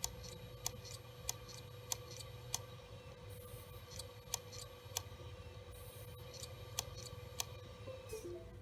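WD Caviar Blue hard drive clicking: sharp clicks a little under two a second in runs of several, with short pauses between runs, over a faint steady whine. This is the 'click of death' of a failing drive.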